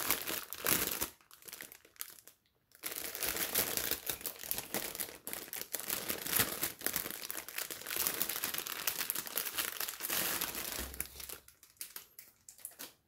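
A clear plastic bag crinkling as hands open it and handle the plastic packets of diamond-painting drills inside. It comes in stretches, with a short quiet gap about two seconds in, a long unbroken stretch after it, and it tails off near the end.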